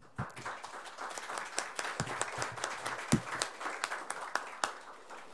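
Audience applauding with many hands clapping, fading out near the end.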